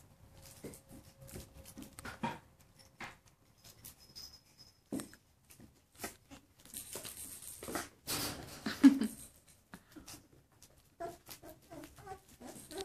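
Black poodle puppies scuffling and playing, with scattered clicks and rustling, one louder cry about nine seconds in, and a run of short whimpering yips near the end.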